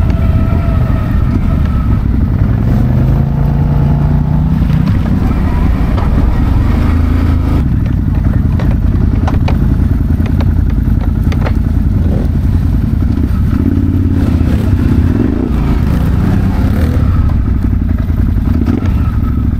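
ATV engine running under way, its pitch rising and falling with the throttle, with a few sharp clatters.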